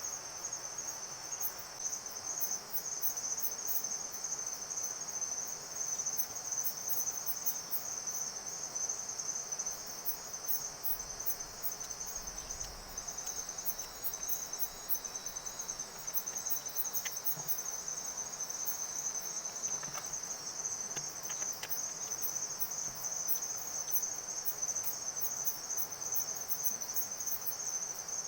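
Forest insects chirring steadily: a high, pulsing trill with a faster, fainter ticking above it, over a soft background hiss.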